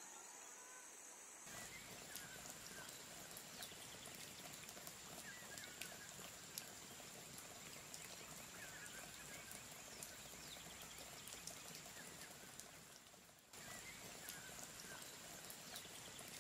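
Near silence: faint background hiss with a thin steady high whine and scattered soft ticks.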